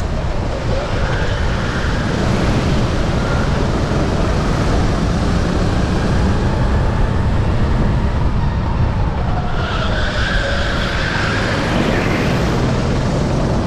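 Sodi RT8 rental kart engine running hard at racing speed under a dense low rumble, its note rising and falling as the revs change.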